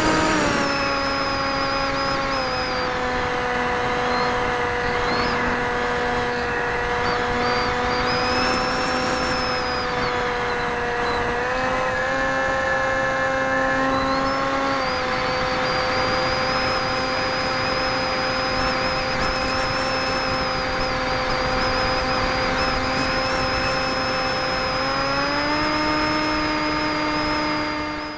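RC model aircraft's motor and propeller running, recorded by a camera on board, a steady whine whose pitch drops about a second in, rises near the middle, drops again and rises once more near the end as the throttle is changed.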